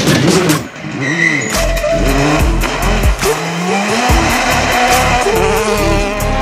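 Citroën DS3 R5 rally car's turbocharged four-cylinder engine at full attack on gravel, its pitch rising and dropping repeatedly through quick gear changes and then climbing in one longer pull. Gravel and stones spray from the tyres.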